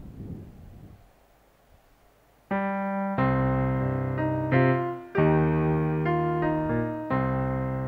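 Electronic keyboard playing sustained chords, the introduction to a hymn; it comes in about two and a half seconds in, and the chords change roughly every second.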